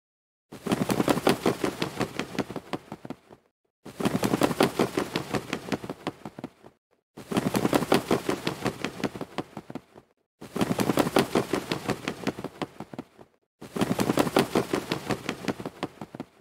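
A looped sound effect of rapid clicks or pops, played in five bursts of about three seconds each with short gaps between. Each burst starts loud and fades.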